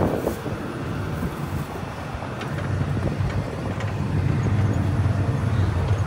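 A John Deere combine's diesel engine running, heard close by with wind noise on the microphone. The low rumble grows louder in the last couple of seconds.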